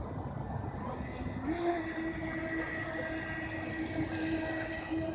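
Small radio-controlled jet boat, a modified NQD Tear Into, running at speed: a steady high motor whine that steps up in pitch about a second and a half in, then holds level.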